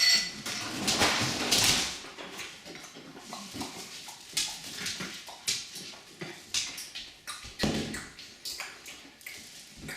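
Siberian husky with a squeaky rubber toy: a short squeak right at the start, then irregular clicks and rustles as she mouths and chews the toy.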